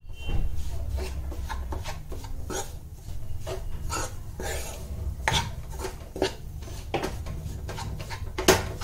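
Steel spoon scraping and knocking against a nonstick kadhai as crumbly besan is stirred and pressed while it roasts in ghee, in irregular strokes with sharper clicks, the loudest near the end. A steady low rumble runs underneath.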